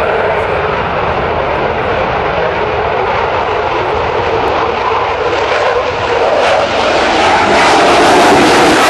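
Jet noise from the twin EJ200 turbofan engines of a Eurofighter Typhoon: a loud, steady rushing noise that swells about six and a half seconds in.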